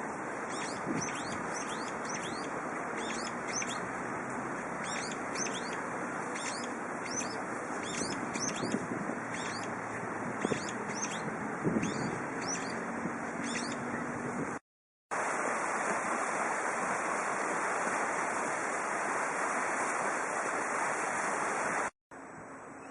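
Brown-eared bulbul calling: a quick run of short, sharp, downward-slurred notes, about two a second, over steady wind noise on the microphone. The calls stop about two-thirds of the way through, there is a brief dropout, and then only the wind is heard.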